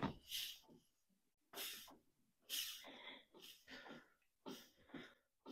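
Several short, faint, irregular hissing puffs of air escaping through soapy water at the head gasket of a Kohler Courage SV725 V-twin, with the cylinder on its compression stroke: the sign of an external head gasket leak.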